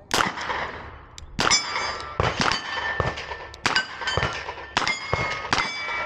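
Iron-sighted revolver fired in a string of shots at steel targets, each hit answered by the ringing clang of a steel plate. The shots and rings come in a quick, uneven rhythm about every half second to second.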